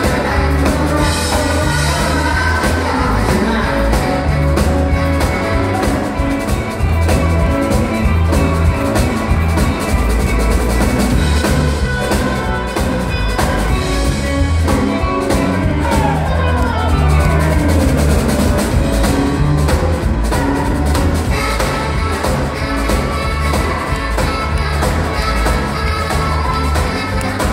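Live band playing an upbeat rock-and-roll number with a steady drum-kit beat, electric guitars and saxophone, with singing.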